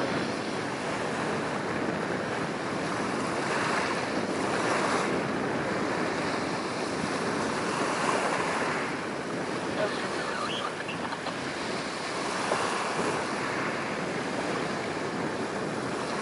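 Waves washing along the shore in surges every few seconds, with wind rumbling on the microphone.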